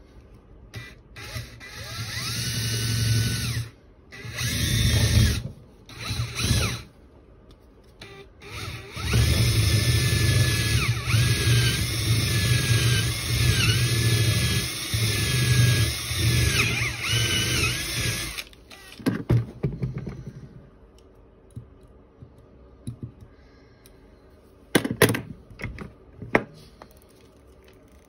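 Handheld electric drill running in a few short bursts and then one longer run, its whine dipping in pitch each time it bites into the lure body held in the vise. A few sharp knocks follow near the end.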